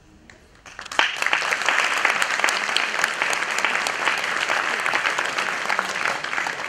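Audience applauding, starting suddenly about a second in and easing off slightly near the end.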